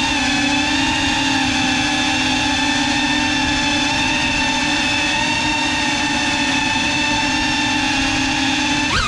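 GEPRC CineLog 35 cinewhoop quadcopter's motors and ducted propellers whining at a steady hovering throttle. Near the end the pitch jumps sharply and drops back as the throttle is blipped.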